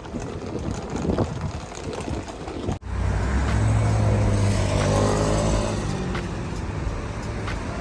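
A road vehicle's engine and road noise: after an abrupt cut about three seconds in, a steady low hum that swells, then eases off.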